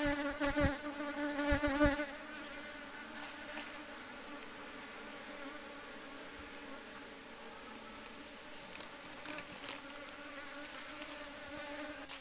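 Honeybees buzzing around an opened hive box: a steady drone, with bees whining close past in the first two seconds along with a few low thumps.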